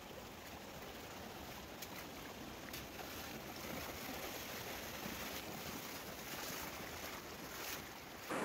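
Shallow mountain stream rushing over stones, with splashing from a person wading through it in chest waders, louder from about three seconds in until shortly before the end.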